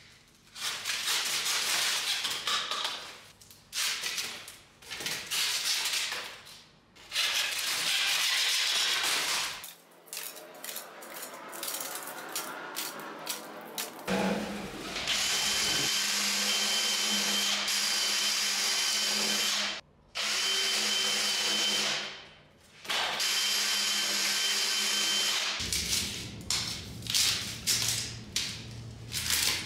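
Green reed canes being stripped and cut: rasping scrapes in short bursts, then a power tool running steadily with a high whine for about ten seconds, then more scraping and handling of the canes.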